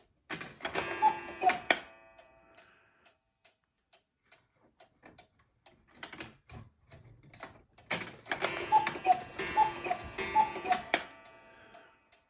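Farmers Daughter one-day cuckoo clock ticking steadily, then sounding its two-note cuckoo call in two bursts, near the start and about eight seconds in. Each burst comes with a clatter of the works and a ringing tone.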